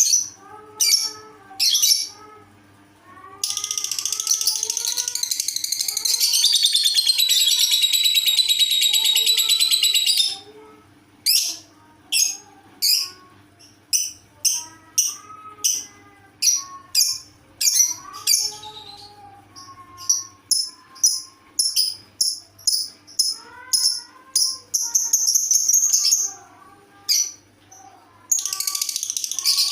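Lovebird calling in an unusual voice: a string of short, sharp, high chirps, broken by a long unbroken stretch of high chatter lasting about seven seconds a few seconds in and another starting near the end. Faint music plays underneath.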